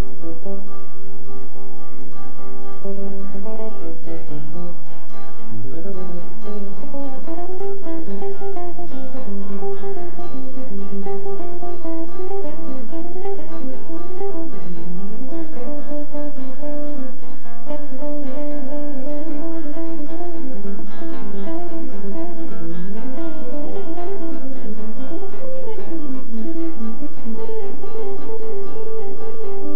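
Acoustic guitar and multi-string electric bass playing an instrumental duet live: melodic runs of plucked notes over low bass notes.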